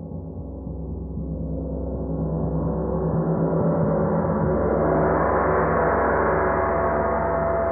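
Handcrafted 32-inch Auris Spiral Gong sounding a dense wash of deep bass tones and shimmering overtones. The sound swells louder and brighter over about the first five seconds, then holds.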